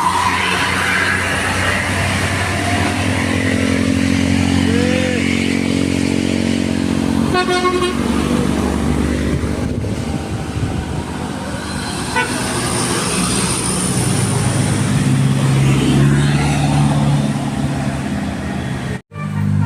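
Tour buses sounding their multi-tone 'telolet basuri' musical air horns over the steady running of the buses' engines, in busy road noise. The sound drops out abruptly for a moment near the end.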